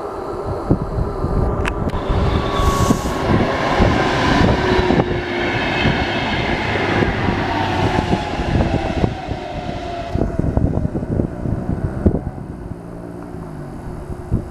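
VR Class Sm4 electric commuter train running through the halt with a rumble of wheels on rail, its motor whine falling slowly in pitch. The noise is loudest in the first two-thirds and eases off toward the end.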